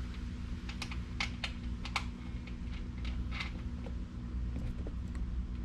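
Light, irregular clicks and taps of a small screw and hardware being handled and fitted back into the seat mount, over a steady low hum.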